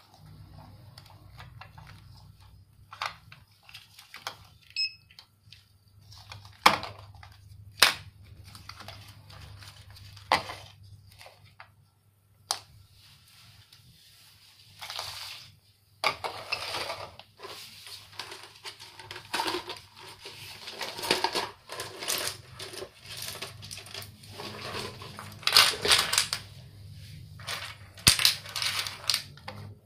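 Hard plastic clicks and clatter: a few separate sharp clicks, then from about halfway through denser rattling bursts of small plastic parts knocking together and against a tile floor, loudest near the end. A steady low hum sits underneath.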